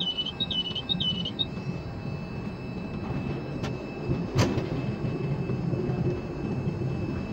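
Ship-to-shore container crane machinery running with a steady low hum as the empty spreader is hoisted and carried out over the ship, heard from the operator's cab. Three short warbling beeps sound in the first second and a half, and there is a single sharp click about four and a half seconds in.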